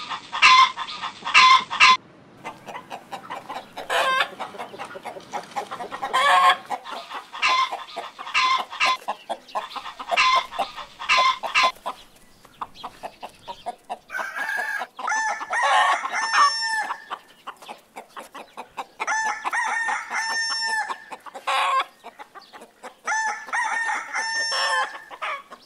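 Chickens clucking in quick, repeated short calls, followed by a rooster crowing three times, each crow about two seconds long.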